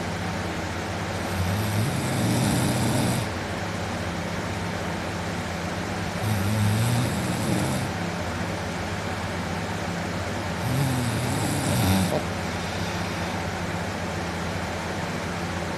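A man asleep on his back snoring loudly: three long snores, about four to five seconds apart, over a steady low hum.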